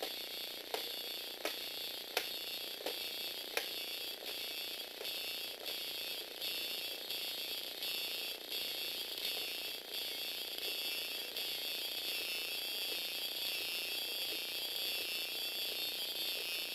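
Small FA-130 electric motor and Tamiya crank-axle gearbox whirring with a steady high whine as they drive a Lego Technic walking robot. Its plastic legs tap sharply about every 0.7 s for the first few seconds, then the taps fade.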